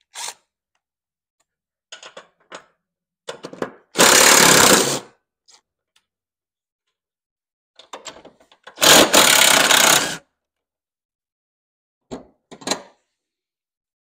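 DeWalt cordless impact driver loosening a mower deck's idler pulley bolts, in two bursts of about a second each, with a few small clicks and knocks between.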